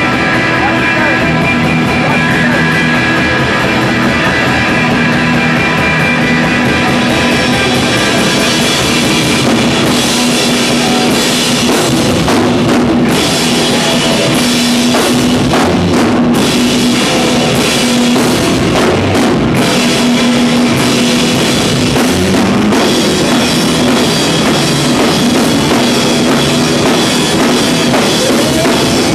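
Live rock band playing loud, with electric guitars and a drum kit. The drums come to the fore about a third of the way in.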